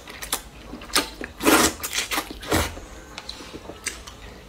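A person slurping wide rice noodles from a cup of spicy broth: a few short slurps in the first half, the loudest about a second and a half in, then quieter chewing.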